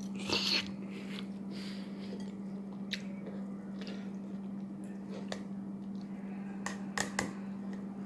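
A person chewing food close to the microphone, with wet mouth sounds, a louder burst about half a second in and a few short clicks later on. A steady low hum runs underneath.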